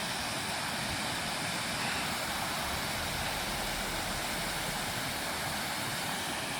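Water rushing steadily down a log flume, an even unbroken noise.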